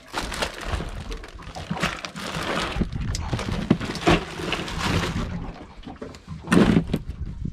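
Plastic bags rustling and ice shifting inside a foam esky as a hand pushes things around in it, with a louder bump about six and a half seconds in.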